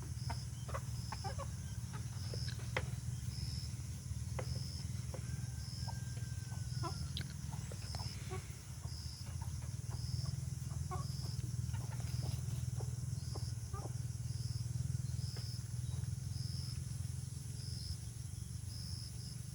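Chickens clucking now and then over a steady low hum, with a faint high chirp repeating about once a second.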